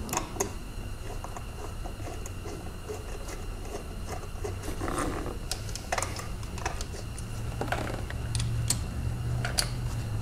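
Hand ratchet clicking in short, irregular runs as engine-mount bracket bolts are undone, with metal clinks from the socket and tools, over a steady low hum.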